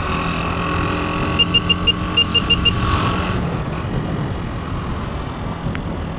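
Honda CG 125 Fan motorcycle's single-cylinder engine running steadily while riding in traffic. About a second and a half in, a run of short high beeps sounds, two sets of four in quick succession.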